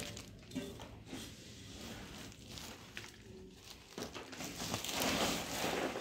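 Cloth and woven plastic sacking rustling and crinkling as they are handled and spread out as bedding under the fermenting millet, with a few small clicks and louder rustling near the end.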